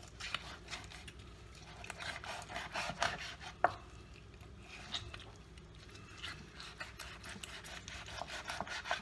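Kitchen knife sawing and scraping through raw pork knuckle skin and meat on a plastic cutting board, in irregular strokes. One sharp click comes a little over three and a half seconds in.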